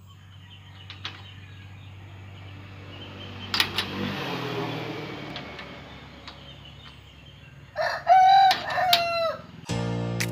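A rooster crows once, long and loud, about eight seconds in. Before it, a metal cage-door latch gives a few clicks, two of them sharp at about three and a half seconds. Music starts just before the end.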